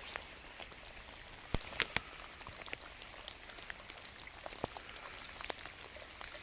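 Rain falling in woodland: a steady light patter with scattered drops landing close by, three louder sharp taps about one and a half to two seconds in.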